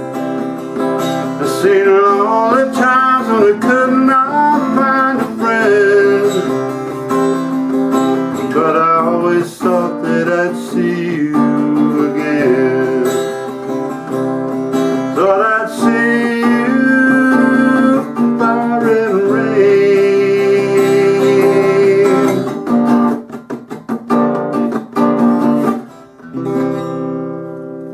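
Acoustic guitar music with a singing voice, the closing passage of a song. It grows quieter after about 23 seconds and ends on a held chord that fades away.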